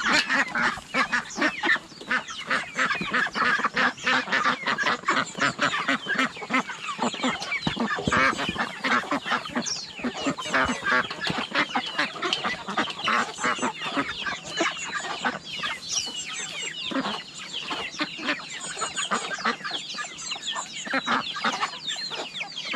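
A flock of chickens clucking continuously, many birds calling over one another.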